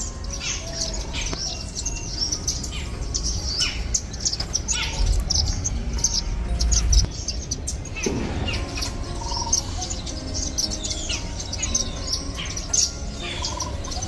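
Small birds chirping: a busy chorus of short, high chirps, several a second, with a low rumble underneath that is strongest about five to seven seconds in.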